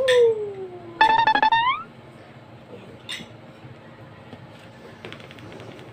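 Short edited-in musical sound effects: a sliding tone that falls over about a second, then a buzzing tone that bends upward at its end, followed by a single faint click about three seconds in.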